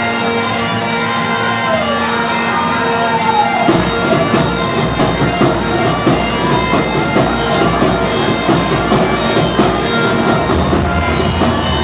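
Music for a stage number: a droning opening with a gliding melody line, then a bass and a steady drum beat come in about four seconds in.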